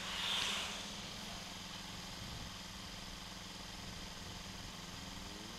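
Kawasaki Ninja 300's parallel-twin engine idling steadily and faintly while the bike waits at a traffic light. A brief hiss swells and fades about half a second in.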